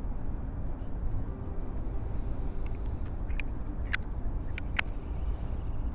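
Steady low outdoor rumble, with a few light, sharp clicks about halfway through.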